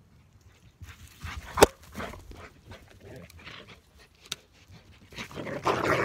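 Bird dogs panting and moving through dry grass close to the microphone. There is a sharp knock about a second and a half in, and the sound is loudest near the end as a dog runs right past.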